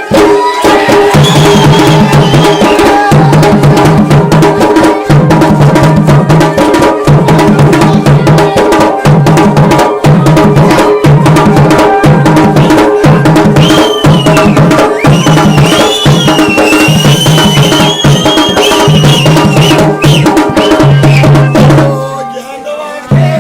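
Garhwali dhol and damau drums playing a fast, dense mandaan rhythm over a repeating low bass note. A high wavering melody line comes in about halfway through, and the drumming thins out briefly near the end.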